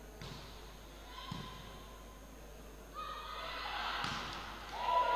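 Volleyball being played in a hall: three dull thuds of the ball being struck, near the start, at about a second and a half in, and at about four seconds in. Shouting from players and spectators rises over the last two seconds.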